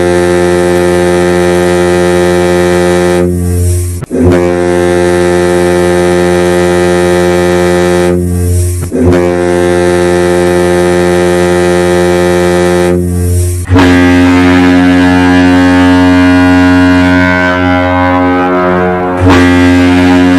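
The SS France ocean liner's ship horn sounding a series of long, deep blasts, each about four to five seconds, with brief dips between them. About two-thirds of the way through, the tone changes to a different blend of pitches.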